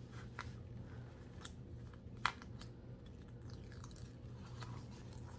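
Faint scattered crackling and small pops from a sticky diamond painting canvas and its plastic cover film as a hand presses and works the wrinkled canvas flat, with one sharper pop about two seconds in. A low steady hum lies underneath.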